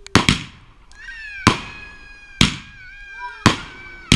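A 'supernova' firework cake firing its shots: six sharp bangs at uneven spacing, about one a second after a quick pair at the start, with high, slightly falling drawn-out tones between the bangs.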